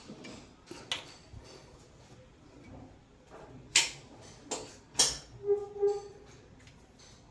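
A run of sharp clicks and clinks of hand tools and shower valve parts being handled, the loudest cluster about four to six seconds in, with a short squeak near the end of that cluster.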